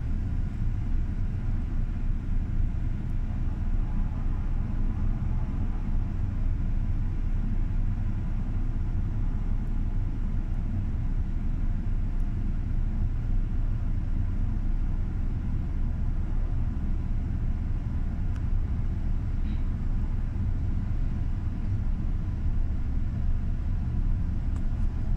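Helicopter running at idle on a ship's deck helipad, rotor turning: a steady low rumble with a faint steady whine above it.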